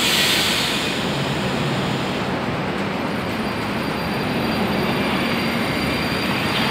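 Metro train running at the platform: a loud, steady rush of rail and running noise, with a thin high whine joining about two seconds in.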